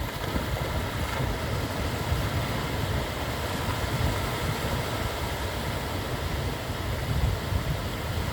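Wind buffeting the microphone: a steady, uneven low rumble with a light hiss over it.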